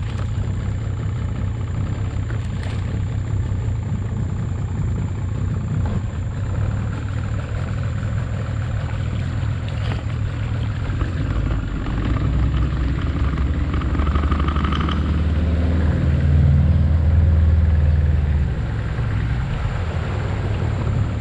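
Small wooden boat's engine running steadily as the boat travels under way. It grows louder for a few seconds past the middle, then eases back.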